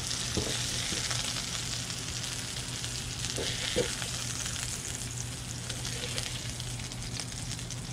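Pieces of bonito steak sizzling in a frying pan on a portable gas stove, with a spatula stirring and turning them now and then.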